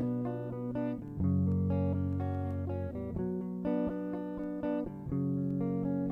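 Guitar strumming sustained chords, changing chord every second or two, with no singing.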